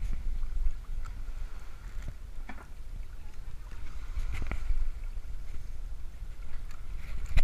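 Wind rumbling on the microphone, with a few short knocks and scrapes from work in a small open fishing boat.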